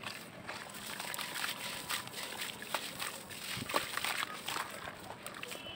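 Hands crumbling and swishing a lump of wet sandy clay in a basin of water: soft gritty crunching and water swishing, with scattered sharp crackles.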